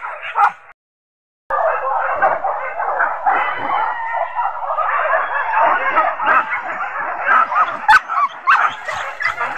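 A pack of hunting dogs in full cry on a wild boar chase: many dogs barking and yelping at once in a dense, unbroken chorus. It cuts out completely for under a second near the start, then resumes.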